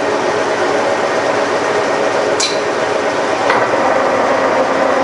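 Milling machine running steadily with a boring bar cutting a bore through a lathe drive mount, with a faint steady whine under the noise. Two short sharp metallic clicks come near the middle.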